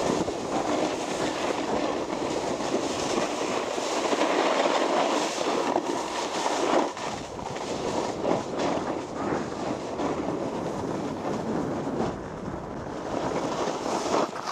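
Snowboard sliding and carving down rough, hard-packed snow: a continuous scraping rumble broken by irregular rattling chatter.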